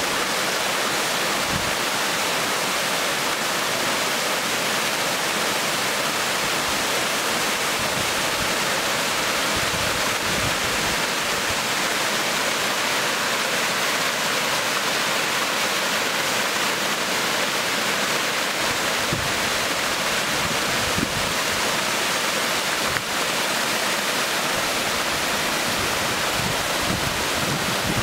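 Waterfall cascading over a rocky slope: a steady, dense rush of white water.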